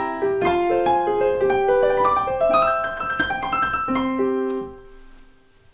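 Piano playing a short, quick phrase of single notes that ends on a held low note, which rings out and fades.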